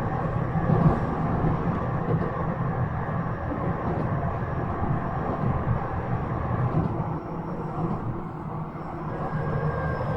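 Cabin running noise of a Y000 series commuter electric train (Toshiba IGBT inverter drive): a steady low rumble of the train rolling on the track, with a few faint clicks. Near the end a faint high tone comes in and slowly falls in pitch.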